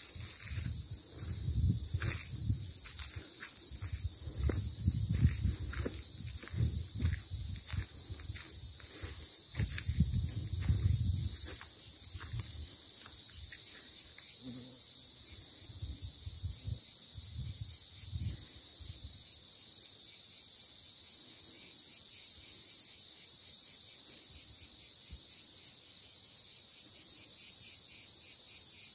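A chorus of cicadas buzzing as one continuous high-pitched hiss. A low rumble comes and goes underneath during the first dozen seconds or so.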